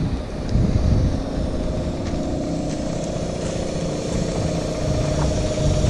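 An engine idling steadily, a constant hum over an uneven low rumble.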